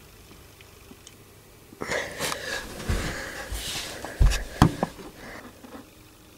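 Handheld camera handling noise: rustling with a few dull bumps and clicks as the camera is swung around, about two seconds in until near the end.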